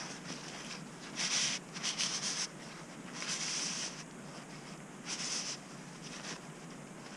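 Short scrubbing and rubbing strokes, about five in a row, on the parts of an ATV starter motor being cleaned of caked carbon brush dust.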